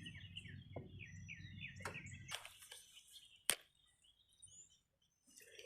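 Faint bird chirping in a quick, evenly repeated series of short notes over a low hum, both stopping a little over two seconds in. Then a few soft clicks and one sharp click about three and a half seconds in.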